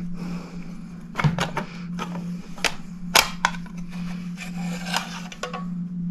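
Scattered sharp clicks and knocks of clock parts being handled and set down, the loudest a little past three seconds in, over a steady low hum.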